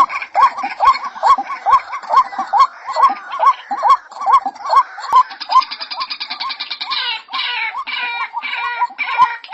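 White-breasted waterhen calling: a steady run of repeated hooked "ruak" notes, a little over two a second. About five seconds in they break into a fast rattling chatter, followed by harsher croaking notes.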